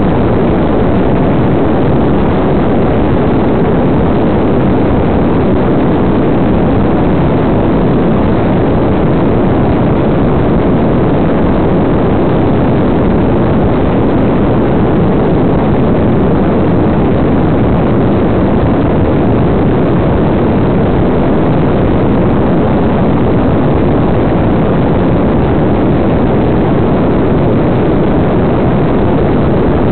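Steady, loud rush of airflow and motor noise on the onboard tail camera of an RC Funflyer model plane in flight.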